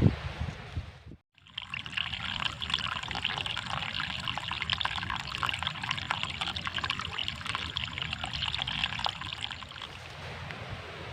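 Trickling water, a dense patter of small splashes, starting after a brief silent gap about a second in and turning to a softer, even rush near the end.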